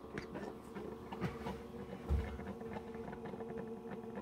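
Keurig K-Café coffee brewer running a brew cycle with descaling solution: the pump hums steadily, with faint ticking and spattering as the liquid runs into the cup.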